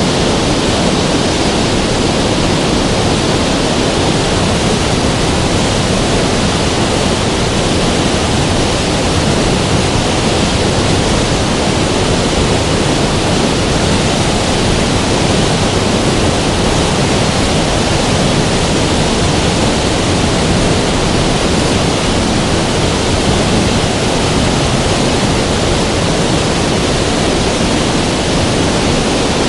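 River water rushing steadily, a loud, even wash of flowing water with no breaks.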